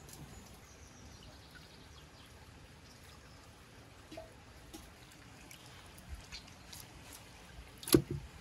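Raw beef rib pieces lifted by hand from a bowl of water and put into a clay pot: soft wet handling with scattered faint clicks, and one sharp knock about eight seconds in.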